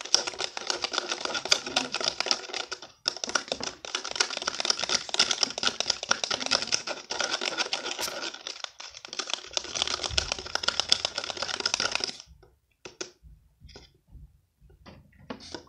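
A pen stirring a wet lotion-and-salt slime mixture in a small cup, with rapid clicking and scraping against the cup. The stirring breaks off briefly twice, stops about twelve seconds in, and is followed by a few scattered taps.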